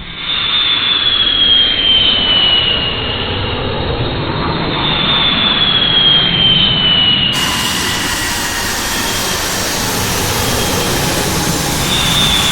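Jet aircraft engines running loud, a broad rushing roar with a high whine that slides slowly down in pitch several times. The sound changes abruptly about seven seconds in.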